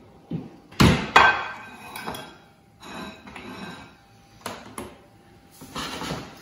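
Kitchen clatter: a ceramic plate and metal utensils knocked down onto a wooden cutting board, several sharp knocks and clinks, the loudest about a second in. Near the end, a fork and tongs scrape and stir pasta in a stainless steel skillet.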